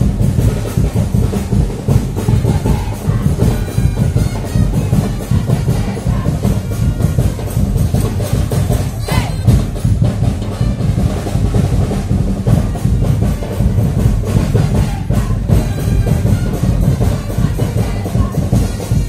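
Carnival parade music driven by loud, continuous drumming with a heavy bass drum and other percussion.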